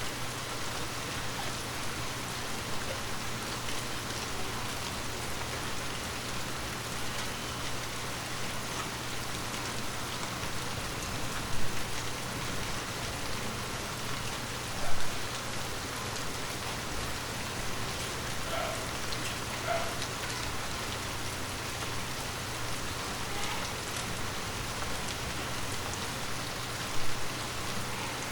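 Light rain falling steadily, with three brief louder drops or splashes standing out.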